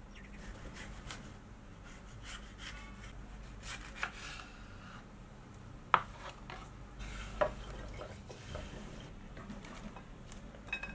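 Kitchen knife cutting a red bell pepper on a wooden chopping board: scattered short cutting strokes and taps, with a sharp knock about six seconds in and another about a second later. Near the end, chopped onion pieces drop into a ceramic dish.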